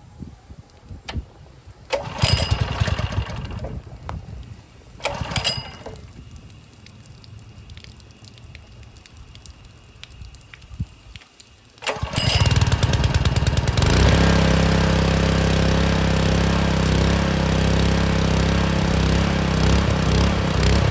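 Honda GX200 single-cylinder four-stroke engine on a pressure washer being pull-started: a pull about two seconds in sputters briefly and dies, a second short attempt about five seconds in fails, and a pull about twelve seconds in catches. The engine then settles into a steady run, starting now on a newly replaced carburetor.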